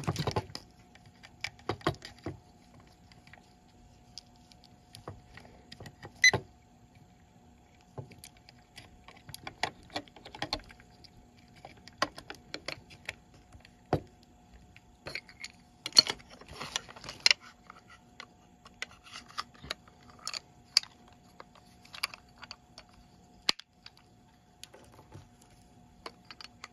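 Irregular plastic clicks, taps and rattles of a handheld infrared thermometer being handled as a 9-volt battery is fitted into its grip compartment, with light metallic jingling from the carabiner clip on its handle. A faint steady hum runs underneath.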